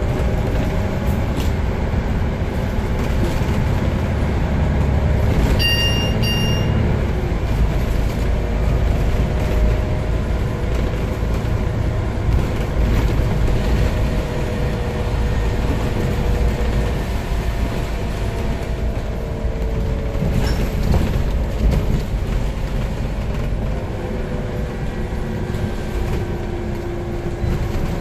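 Interior of a 2005 Scania CN94UB Omnicity single-deck bus under way: a steady low rumble from its engine and drivetrain with road noise, and a whine that rises and falls in pitch as the bus speeds up and slows. A short double electronic beep sounds about six seconds in.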